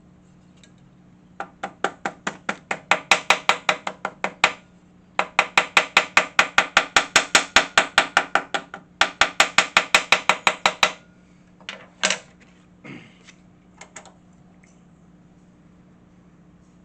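Small Plumb hammer tapping rapidly and evenly, about five light strikes a second, in three runs with short pauses, marking out a cardstock template against a part's edge. A few separate knocks and clatters follow near the end.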